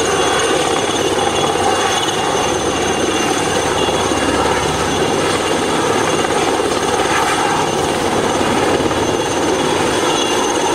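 Helicopter hovering overhead with a slung load: a steady, loud rotor and engine drone with a high whine on top.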